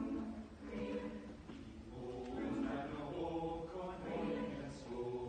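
Mixed-voice chamber choir singing, the phrases swelling and easing every second or two.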